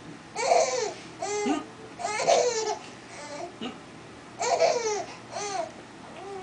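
Baby laughing in about six high-pitched bursts, each roughly half a second long, with short pauses between them.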